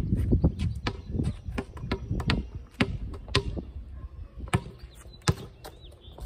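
A basketball bouncing on a concrete driveway: a run of sharp slaps at an uneven pace, coming quickly at first and further apart toward the end.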